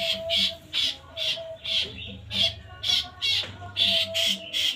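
Kapasan (white-shouldered triller) giving harsh, squawking calls over and over, about two a second.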